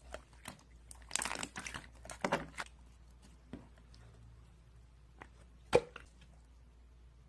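Slime being handled by hand: bursts of short crackles and crunches, with a single sharp pop a little before the end.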